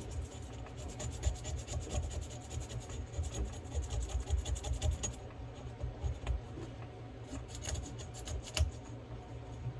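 Scraper working old gasket material off the metal flange of a Sherwood raw water pump body down to clean metal: rapid scratchy strokes, dense for about the first five seconds, then sparser, over a low steady rumble.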